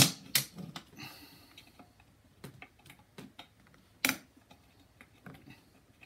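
Screwdriver clicking and knocking against the seat safety switch and seat pan of a Snapper rear-engine rider as the switch's tabs are pried free: irregular sharp clicks, the loudest right at the start and about four seconds in.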